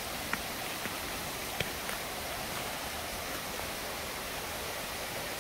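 Steady rushing of a creek pouring over a small waterfall, with two faint clicks in the first couple of seconds.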